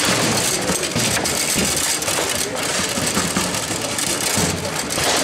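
Table football in play: the rods rattle and slide in the table, the ball knocks against the players' figures and the walls, and the whole makes a continuous clatter of sharp knocks.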